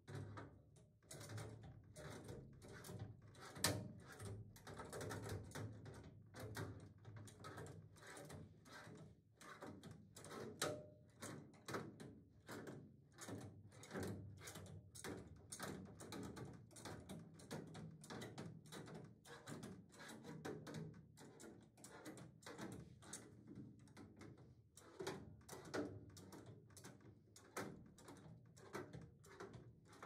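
Work noises in a small room: a steady run of irregular knocks, clanks and rattles, several a second, from tools and parts being handled, over a low steady hum. One sharper knock stands out about three and a half seconds in.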